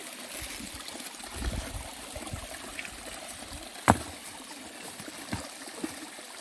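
Water trickling steadily into a small dug pond, with a few small ticks and one sharp knock about four seconds in.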